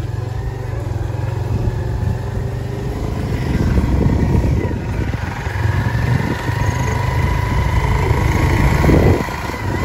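Motorcycle running steadily along a road, heard from the seat, with wind rushing over the microphone.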